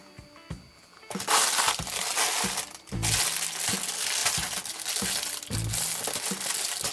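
Clear plastic packaging crinkling loudly as it is pulled about and cut open with scissors, starting about a second in, over background music with a steady low beat.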